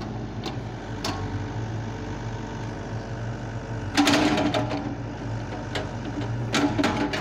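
SANY compact crawler excavator's diesel engine running steadily while it digs. About four seconds in, and again near the end, a higher hydraulic whine comes in as the boom and bucket work under load, with knocks and scrapes of the bucket biting into the earth.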